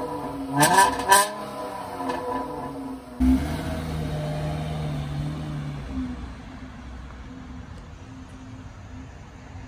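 Dodge Challenger's exhaust revving in two quick blips close up. Then the engine runs low and steady as the car pulls away, fading into the distance.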